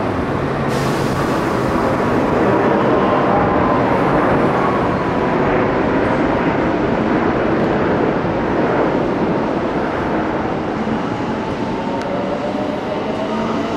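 JR West electric commuter train running into the platform: steady wheel-on-rail and motor noise as the cars pass, with a faint motor whine.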